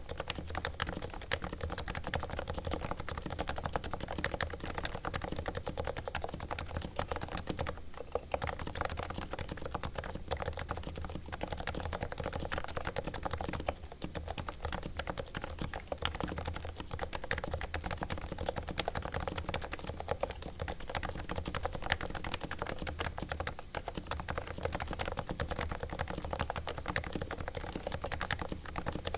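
Continuous fast typing on a Realforce R2 TKL silent (low-noise) Topre keyboard with variable 30–55 g key weights, its sliders and springs lubed with Krytox and its stabilizers straightened and lubed. Short lulls in the keystrokes about 8 and 14 seconds in.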